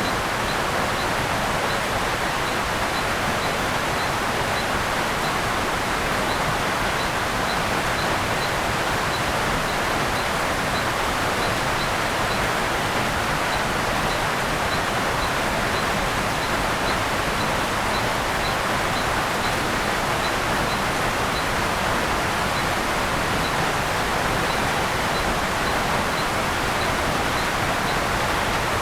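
Steady tropical rain falling on the rainforest, an even hiss with no breaks. A faint high chirp repeats about twice a second over it.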